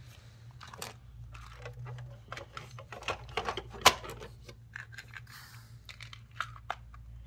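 Plastic toy playset parts clicking and knocking as they are handled and moved about, with one sharper knock about four seconds in.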